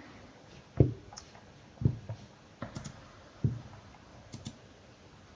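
A handful of irregular, short clicks and taps from a computer keyboard and mouse, some with a light low thump.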